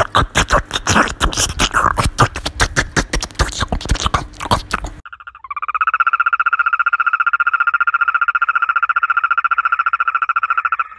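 About five seconds of rapid, irregular smacking clicks, then a frog calling with its vocal sac inflated: one long, steady, rapidly pulsed trill lasting about five seconds.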